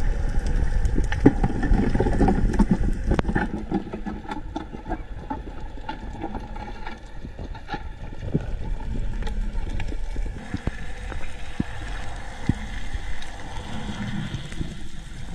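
Underwater ambience picked up by a camera below the surface: a low rumbling wash with many scattered sharp clicks and crackles, the rumble heavier in the first few seconds.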